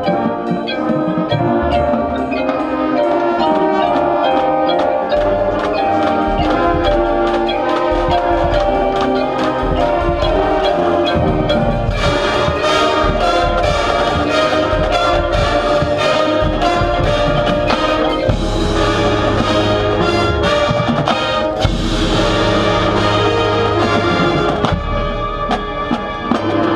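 Drum and bugle corps playing a field show: brass horns over marching percussion and front-ensemble mallets, the brass swelling to a fuller, louder passage about halfway through.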